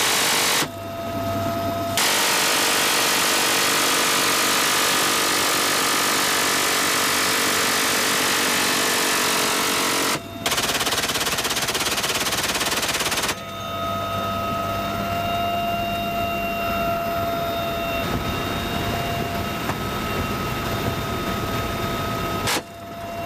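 Helicopter door-mounted machine gun firing long, continuous bursts, heard as one unbroken roar from about two seconds in until about thirteen seconds, with a momentary break near ten seconds. Where the firing stops, briefly near the start and over the second half, the helicopter's cabin noise with a steady whine takes over.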